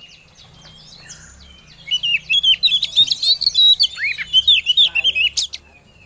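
Oriental magpie-robin (kacer) singing a fast, varied run of chirps and twitters, faint at first and loud from about two seconds in until just before the end. It is the female kacer's calling to a male, used to draw males into song.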